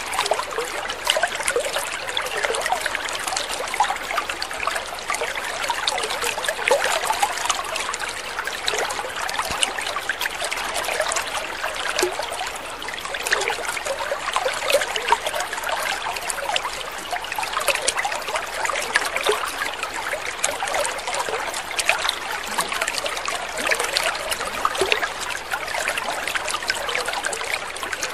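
Water trickling steadily, a continuous patter of many small splashes with no pauses.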